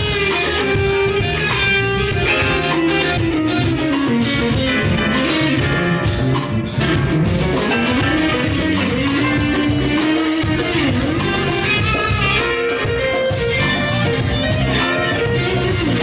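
Live band playing an instrumental: a lead melody that bends in pitch, with electric guitar, drum kit and percussion underneath.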